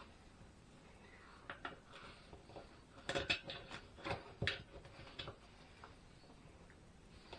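Metal tire levers clinking and knocking against a motorcycle wheel rim as the tire is worked off, a quick run of sharp knocks in the middle.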